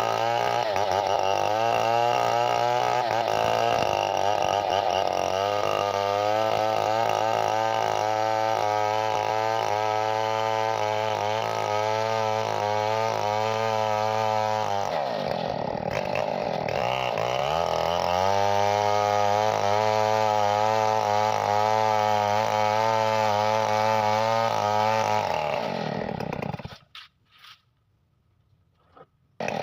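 Two-stroke chainsaw engine running at high revs, its pitch wavering. About halfway the revs drop and climb back. Near the end the sound cuts out for a few seconds.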